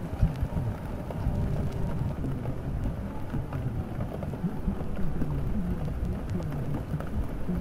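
Steady rain with a low rumble under it, mixed as a rainy-night ambience. Beneath the rain a faint, muffled sound glides up and down in pitch.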